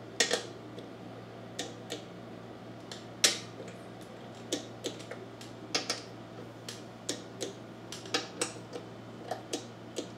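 Click-type torque wrench set to 80 inch-pounds on the sump cover bolts, giving irregular sharp clicks about once a second as each bolt is checked at torque. The loudest click comes about three seconds in.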